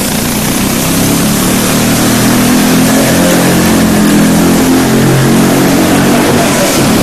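Compressed-air Quasiturbine engine of a go-kart running, a steady pitched hum with a broad hiss over it; its pitch rises slightly about a second in, then holds.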